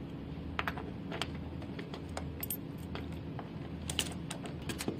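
Small clicks and taps of round 3-pin cable plugs being fitted into their sockets on the panel of a beauty machine, a few scattered through and more near the end, over a faint steady low hum.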